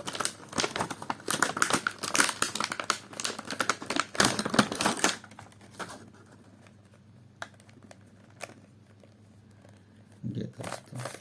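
Plastic crinkling and quick clicking as a large plastic puzzle cube is unwrapped and handled, dense for about five seconds, then a few scattered clicks.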